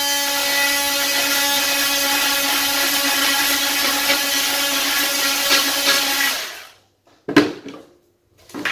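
Small cordless power tool running at a steady high speed, shaving a little excess off the wood, then winding down and stopping about six and a half seconds in. A single knock follows as it is set down, then a hand brush starts sweeping near the end.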